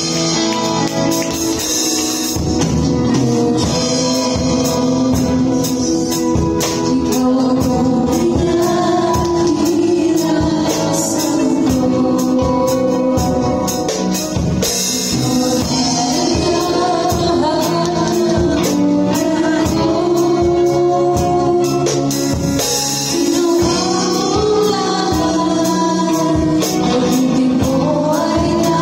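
Live worship song in Tagalog: women singing the melody through microphones, backed by a drum kit with steady cymbal and drum hits, electric bass and acoustic guitar.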